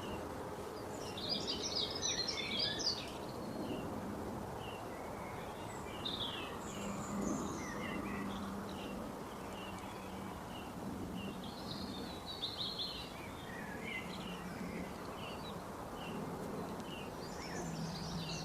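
Small birds chirping, with short bursts of rapid twittering now and then over steady outdoor background noise.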